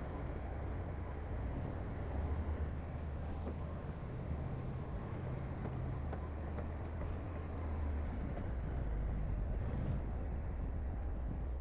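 Heavy diesel construction machinery running, a steady low engine drone that swells slightly a couple of times.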